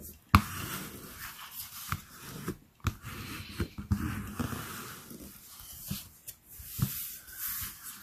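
Bone folder rubbing back and forth over glued cardstock, a dry papery scraping, pressing the layer flat to push out glue bubbles. A few sharp taps and knocks as the card is handled.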